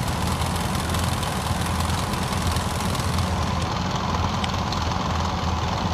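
Off-road vehicle engine idling steadily, a low, even hum.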